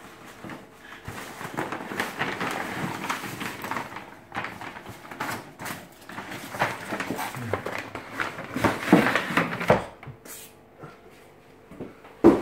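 Hands rummaging through a cardboard box packed with foam packing peanuts and brown kraft paper: irregular rustling, crinkling and scraping, busiest about nine seconds in. A single sharp knock just before the end.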